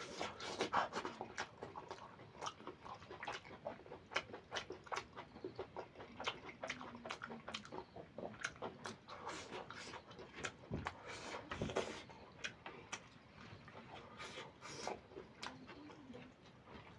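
Close-miked wet chewing and lip-smacking while eating goat liver curry with rice, with many quick irregular mouth clicks.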